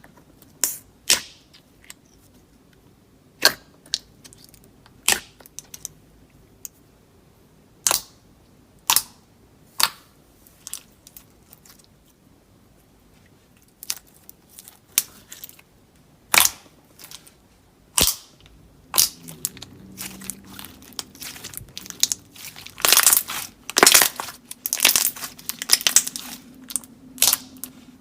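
Slime being worked, giving sharp pops and clicks a second or two apart that crowd into dense crackling about three-quarters of the way through.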